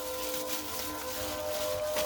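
Background music with long held tones. Under it come faint soft clicks and squelches of raw lamb chops being mixed by hand in a thick yogurt and spice marinade.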